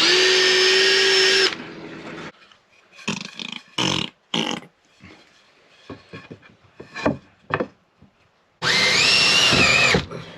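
Power drill driving screws into a wooden batten: two whining runs of about a second and a half, one at the start and one near the end, with a few short knocks and taps between.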